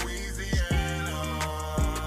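Hip hop music: sustained chords over deep bass hits whose pitch drops, landing about every second and a quarter.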